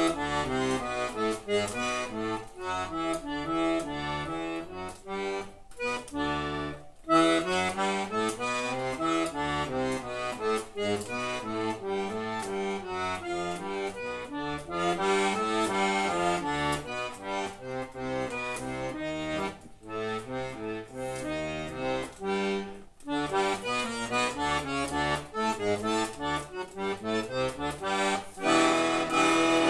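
Scala piano accordion playing a fast, busy melody over bass accompaniment, breaking off briefly a couple of times and growing louder near the end.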